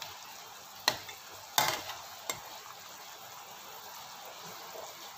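Chicken and green chili soup simmering in a pan with a steady bubbling hiss, stirred with a ladle that knocks against the pan three times in quick succession, the middle knock loudest.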